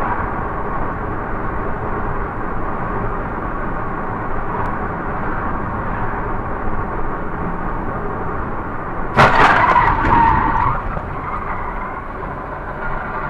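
Steady road and engine noise inside a moving car, then about nine seconds in a sudden loud car-collision crash, followed by screeching for a second or so.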